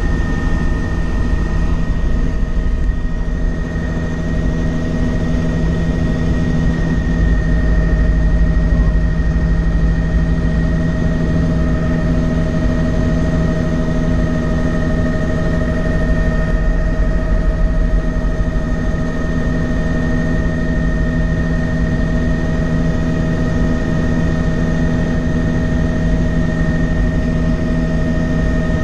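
Helicopter engine and rotor heard from inside the cabin while taking off and climbing: a steady loud drone with a constant high whine over a heavy low rumble.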